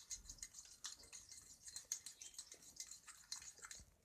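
Thick, sticky liquid-soap slime being stirred in a bowl, making faint, irregular wet clicks and squelches several times a second.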